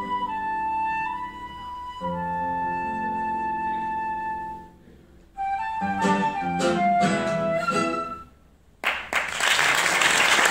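Flute and classical guitar duo playing long held flute notes over plucked guitar chords, then after a short pause a quicker run of notes to the closing cadence. After a moment of silence, the audience starts applauding about nine seconds in.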